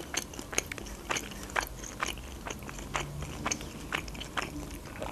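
A person chewing a crusty slice of pide with the mouth closed: a steady run of small crunches and mouth clicks, about two a second.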